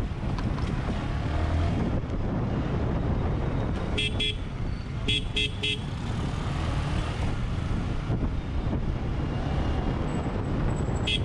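Steady rumble of a motorcycle ride in traffic, engine and wind on the camera, broken by a vehicle horn giving short beeps: two about four seconds in, three quick ones a second later, and two more at the very end.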